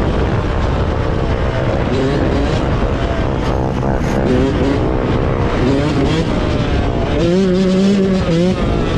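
Small off-road vehicle engines revving, their pitch rising and falling again and again, with a strong held pitch near the end.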